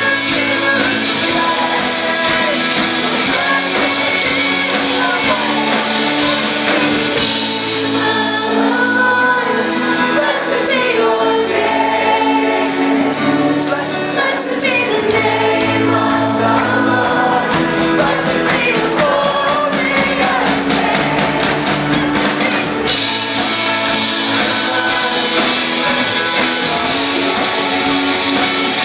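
Live band playing a loud rock worship song with drums, electric guitar and bass. A singer's voice carries the melody through the middle, while crashing cymbals fill the opening and closing stretches.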